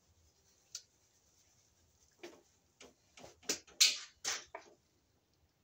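Short metallic clicks and scrapes of a screwdriver and copper wire against the steel enclosure of a breaker panel while a neutral wire is worked under a terminal. There is one click about a second in, then a cluster of them from about two to nearly five seconds in, loudest near four seconds.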